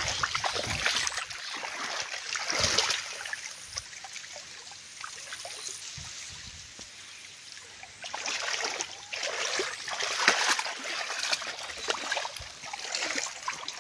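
Irrigation water trickling along an earthen field channel, mixed with tall grass rustling and brushing close to the phone as someone walks. It grows louder again from about eight seconds in.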